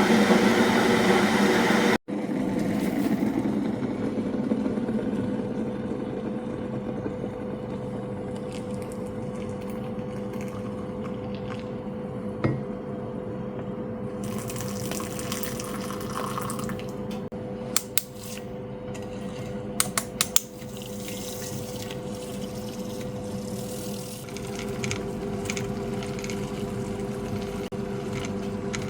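Water sounds over a steady hum from a kitchen appliance while instant coffee is being made, with a few light clicks about two-thirds of the way through.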